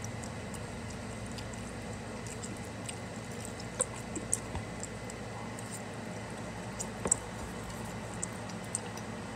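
Slurping and chewing of ramen noodles, wet mouth sounds, with a few short sharp clicks of a metal fork against the plastic container, the loudest about four and seven seconds in. A steady low hum runs underneath.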